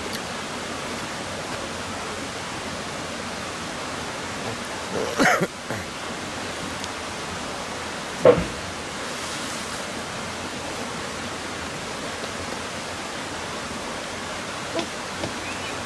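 Steady rush of flowing river water. Two brief short sounds cut through it, the louder and sharper one a little past eight seconds.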